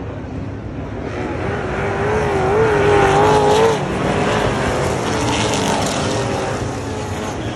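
Speedway race cars on a dirt oval running past at full throttle. The engines grow louder to a peak about three and a half seconds in, their pitch wavering as the revs rise and fall, then drop off suddenly as the cars go by, with more engines still running on the track.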